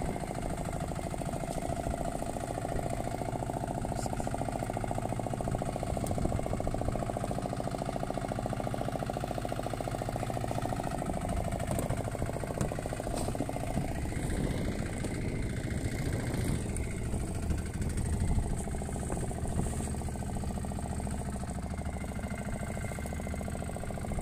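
A fishing boat's engine idles steadily, with a few light knocks on top.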